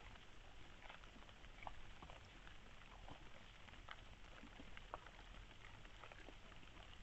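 Faint, irregular small clicks and crackles of a fox foraging at the ground, nosing and picking at food, over a low steady hum.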